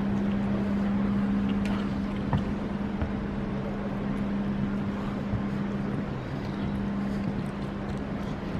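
A steady low hum holding one constant pitch over a bed of noise, with a few faint small knocks.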